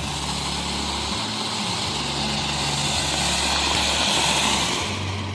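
Fountain firework spraying sparks with a steady loud hiss that swells a little and then dies away near the end.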